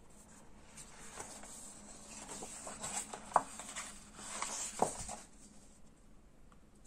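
Pages of a picture book turned by hand: faint paper rustling with a few light taps, the sharpest in the middle.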